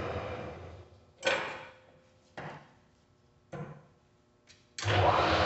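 Mori Seiki MS-1250G engine lathe winding down to a stop, then four sharp clunks about a second apart as the headstock gear levers are shifted, the first the loudest; near the end the lathe starts up again and runs steadily.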